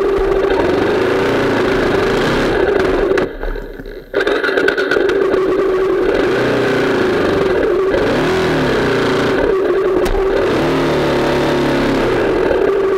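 Dirt bike engine running while riding a trail, its pitch rising and falling with the throttle. The sound dips sharply for about a second a few seconds in, then comes straight back.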